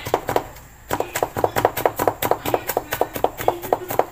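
Rapid chopping of peeled garlic with a cleaver-style knife on a wooden cutting board: an even run of sharp knocks, about five a second, with a brief pause just under a second in, as the garlic is minced not too fine.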